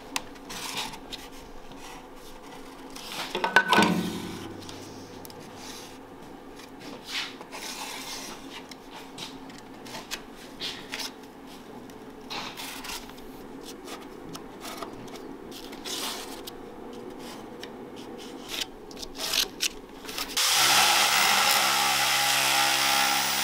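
Marker scratching and rubbing as a cardboard template is traced onto sheet metal, with a clatter about four seconds in. Near the end a handheld electric sheet-metal shear starts up and cuts the sheet, much louder and steady.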